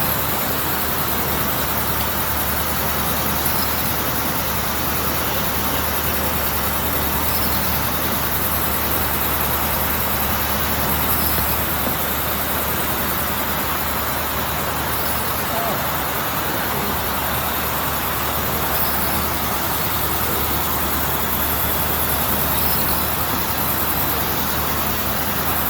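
Automatic meat bandsaw running steadily, a constant machine noise with a low motor hum.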